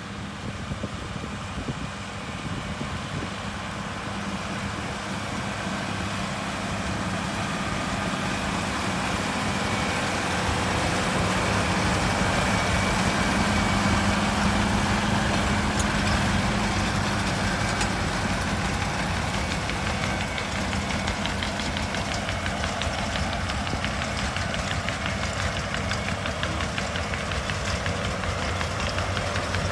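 Case MX135 tractor's diesel engine running steadily while working a Vicon baler, with a continuous mechanical clatter over the low engine hum. It grows louder over the first half, then eases off slightly.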